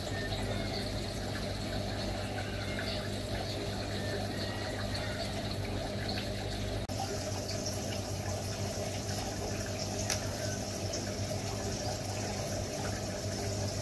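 Aquarium water pump running: a steady trickle of water over a low electrical hum, with a brief drop-out about seven seconds in.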